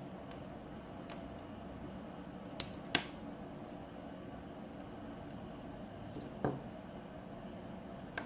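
A few scattered sharp clicks, two close together about three seconds in, and a softer knock with a short sliding sound past six seconds, over a steady low room hum.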